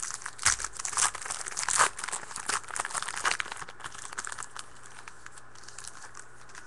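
Plastic wrapper of a football trading card pack crinkling and tearing as it is ripped open by hand and the cards are slid out. The crinkling stops about two-thirds of the way through.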